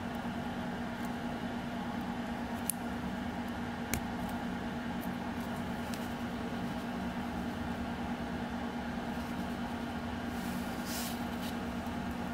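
A steady low hum with room noise, with two small clicks about three and four seconds in and a brief hiss near the end.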